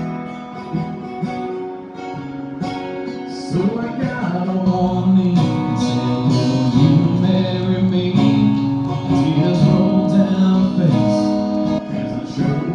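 Two acoustic guitars strummed live, with a man singing over them.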